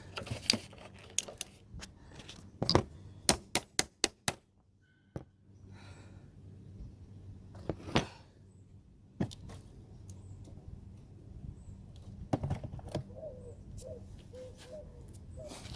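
Sharp clicks and knocks of parts and tools being handled while refitting a car battery, with a quick run of about six clicks around three to four seconds in and single knocks later. A bird cooing faintly near the end.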